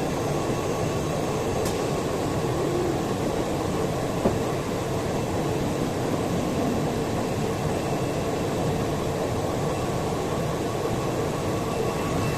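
Woodworking CNC router running steadily: an even mechanical noise with a faint steady whine from the spindle motor, and one small click about four seconds in.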